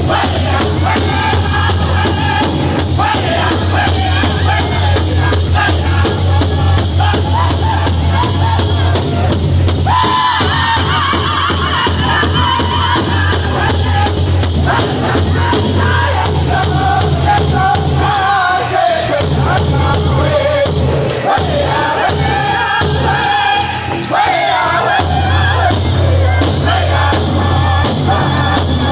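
Powwow drum group singing loudly together around a big hide-covered drum, several drumsticks striking it in a steady unison beat. The sung phrases start high and step downward in pitch.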